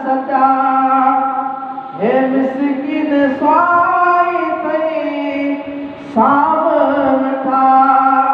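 A man singing a Sindhi naat into a microphone, drawing out long wavering notes without clear words, with new phrases starting about two and six seconds in.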